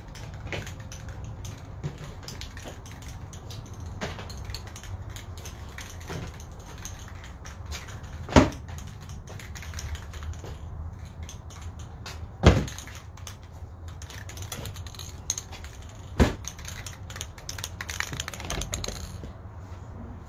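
Cardboard box lids and an aerosol spray-paint can being handled: a run of light clicks and taps, with three sharp knocks about eight, twelve and sixteen seconds in. A short hiss of spray near the end.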